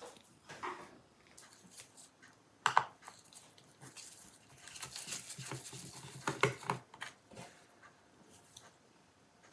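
Scattered clicks and taps of a JIS No. 1 screwdriver and gloved hands working the screws of a laptop's bottom panel. The sharpest click comes about three seconds in, followed by a run of taps between about five and seven seconds.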